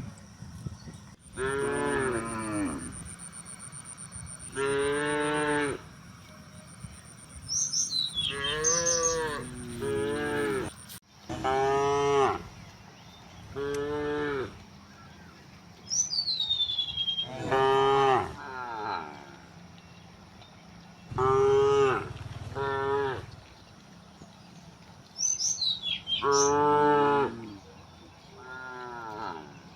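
A herd of cows mooing again and again, about ten separate calls from different animals, each lasting a second or two.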